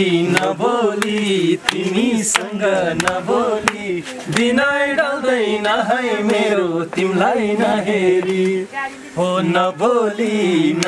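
A man singing without words being picked out, a flowing melody with held notes and a wavering pitch.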